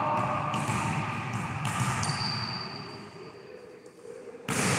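Echoing sports-hall ambience during an indoor volleyball game, with two light knocks in the first two seconds and a sudden rise of noise near the end.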